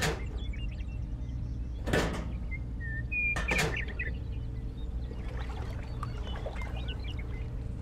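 Small handmade model parts set down on sand with a few light knocks, about two seconds apart, over a steady low background rumble. Small birds chirp in the background.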